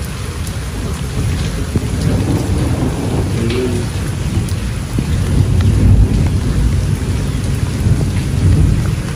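Heavy rain falling and splashing on a flooded yard, with a low rumble underneath that swells about six seconds in and again near the end.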